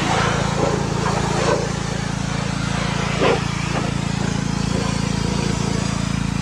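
Pressure washer running steadily, its motor giving a constant drone under the hiss of the spray.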